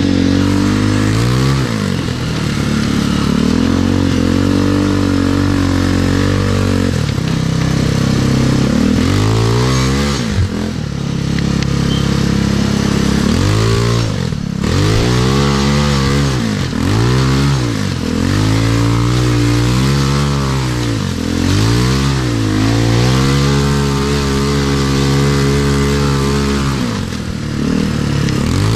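Off-road buggy's small engine running while driven, its pitch rising and falling again and again as the throttle is opened and eased off, with a constant rushing noise over it. It holds steady high revs for several seconds near the start and again toward the end.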